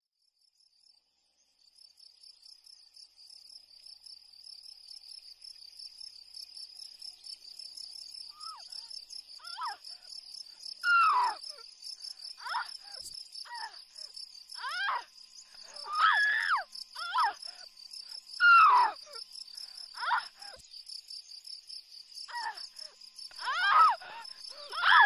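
Crickets chirping steadily at night. From about a third of the way in, a woman's short pained cries and moans come again and again at irregular intervals, several of them loud: the cries of a woman in labour.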